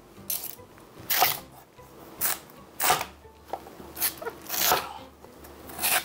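A steel vegetable peeler scrapes skin off a winter radish, followed by a chef's knife cutting down through the radish on a wooden cutting board. These come as a series of short, crisp strokes, about six of them.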